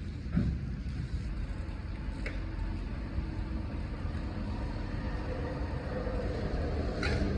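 Steady low rumble of a vehicle on the move, with wind buffeting the microphone and a few short knocks.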